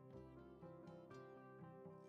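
Quiet background music of plucked string notes.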